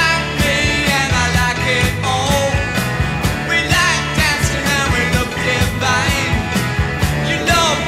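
Rock song with a singing voice over a steady beat of drums and bass.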